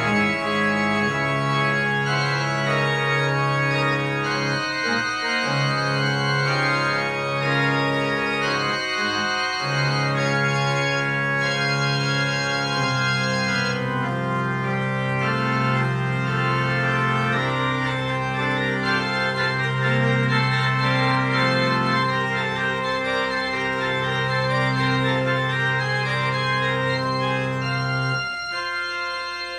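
Church organ played from a two-manual console: slow, sustained chords over long-held bass notes. The bass drops out near the end.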